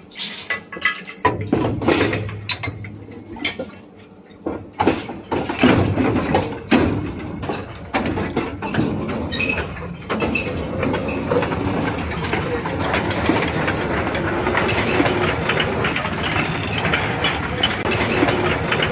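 Repeated sharp metal clanks from the coupling chain and pin of a small mine locomotive and its coal mine cars. From about ten seconds in, these give way to the steady rattling rumble of the loaded mine cars rolling along the rails.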